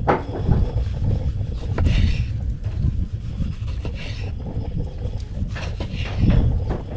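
Wind on the microphone: a low, irregular rumble that runs on, with a few faint higher sounds now and then.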